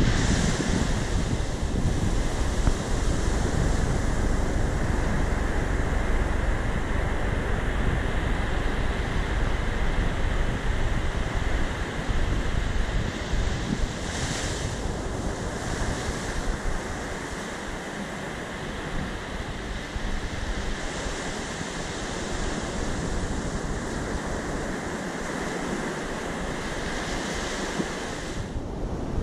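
Surf breaking and washing on a sandy beach, a steady rush of waves. Wind buffets the microphone with a low rumble that eases in the second half.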